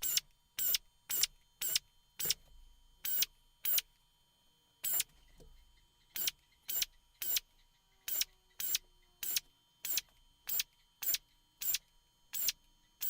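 Drill run in about twenty short bursts, roughly two a second with a few longer pauses, each burst drilling one rivet hole in turn along a row in an airplane flaperon spar.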